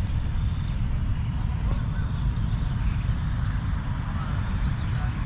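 Wind rumbling and buffeting on the microphone, with a steady high insect drone and a few faint bird chirps behind it.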